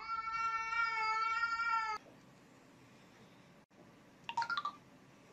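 A cat giving one long, steady, drawn-out meow for about two seconds that cuts off suddenly; a little over four seconds in, a cat gives a short meow.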